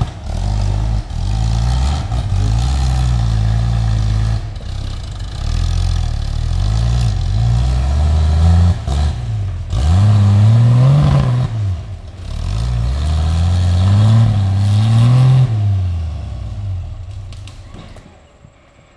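Off-road 4x4's engine revving hard in repeated rising and falling surges as it climbs a steep rocky slope under load; the revs die away near the end.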